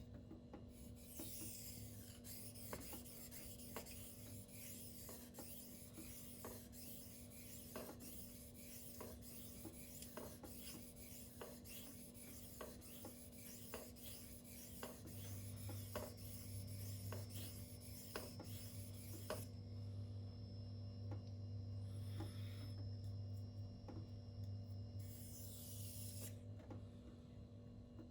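Steel knife blade being stroked back and forth across a silicon carbide whetstone in freehand sharpening: a steady gritty scraping with a light click about once a second at each stroke. The scraping stops for several seconds near the end, then resumes.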